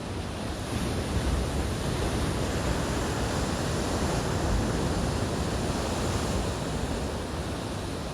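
Ocean surf breaking on a rocky shore: a rushing wash that swells about a second in and eases off near the end.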